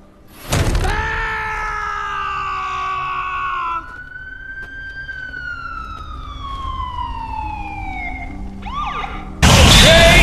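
Film soundtrack effects: a sudden hit about half a second in, then a long sustained tone with overtones that slowly falls in pitch. A single tone follows that rises a little and then glides slowly downward. Near the end a loud blast comes in as the KO screen appears.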